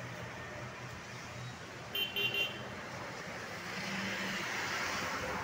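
Street traffic noise with a vehicle horn giving three short toots about two seconds in, then a car driving past.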